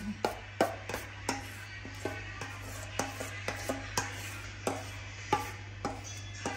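Metal spoon scraping batter out of a stainless-steel mixing bowl, knocking against the bowl's rim and sides in about a dozen sharp clicks at uneven intervals. Soft music plays underneath.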